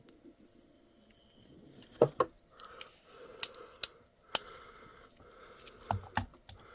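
Small sharp clicks and taps from handling a die-cast toy truck and its small plastic wheels while the wheels are swapped, in several short clusters.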